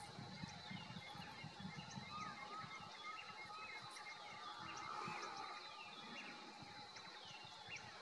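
Faint background bird calls: many short chirps and whistles, most sliding down in pitch, scattered throughout, over a thin steady high tone.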